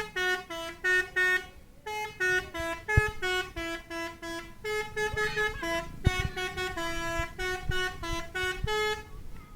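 A telolet multi-tone musical horn on a box truck plays a fast melody of short notes that jump between a few pitches. It pauses briefly about a second and a half in and stops about nine seconds in.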